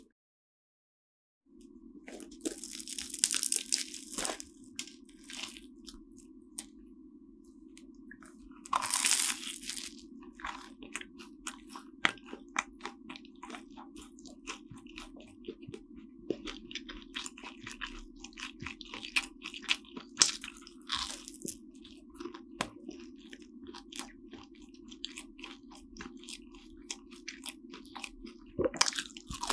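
Flaky almond-topped croissant crunching as it is torn and eaten close to the microphone, with loud crackling bursts at about 3 and 9 seconds in and soft chewing clicks in between.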